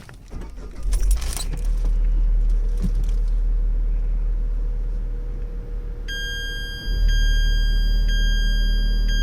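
Tata Nexon CNG starting with a few clicks, then its engine running steadily. About six seconds in, a high steady electronic tone comes in, and about a second later the low running sound steps up louder.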